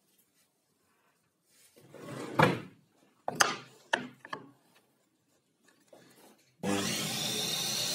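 Pieces of scrap plywood knocking and clattering as they are handled and set down on a wooden work surface, with a few sharp clicks. About two-thirds of the way in, a steady loud noise starts abruptly and carries on.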